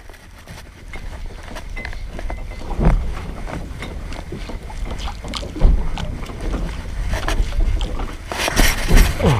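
Wind rumbling on the microphone on an open boat at sea, with a few thumps and knocks; the loudest comes just past halfway.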